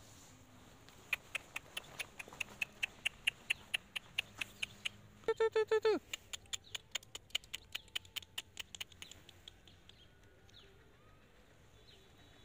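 Animal calls: a fast, even run of short high squeaky chirps, about four or five a second, fading out after several seconds. About five seconds in there is one longer pitched squeal that drops in pitch at its end.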